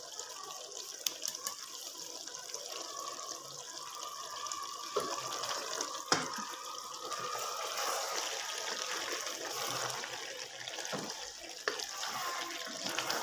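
Potato and cauliflower curry sizzling in a metal pan as a spatula stirs it, with a few sharp knocks and scrapes of the spatula against the pan, the loudest about six seconds in.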